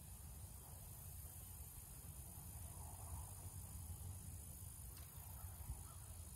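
Faint outdoor ambience: a steady high drone of insects such as crickets over a low, fluttering wind rumble.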